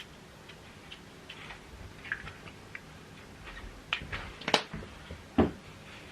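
Light clicks and taps of a small glass bottle and its cap being handled, with a few sharper knocks in the second half, the loudest about four and a half seconds in.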